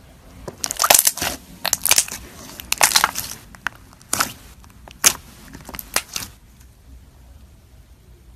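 Clear gold-glitter slime squished and poked with fingers, giving a quick, irregular series of sharp pops and squelches that stop a little after six seconds in.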